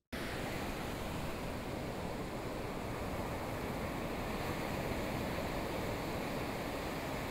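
Steady, even rushing outdoor ambience with no distinct events, cutting in abruptly at the start.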